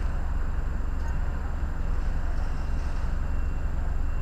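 Steady low rumble and road noise of a moving vehicle, heard from inside the cab.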